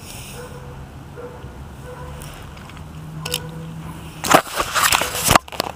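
Handling noise from the camera being picked up and moved: loud rustling and crackling close to the microphone, starting about four seconds in and lasting about a second, ending in a sharp knock.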